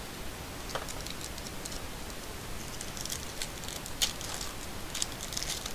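Crinkling foil trading-card pack wrapper and stiff cards being handled and slid apart: scattered light crackles and ticks that grow busier about halfway through, over a steady hiss.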